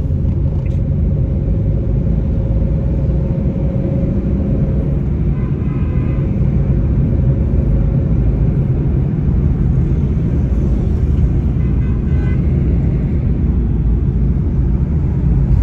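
Steady low road rumble of a car heard from inside the cabin, from the engine and tyres on the road.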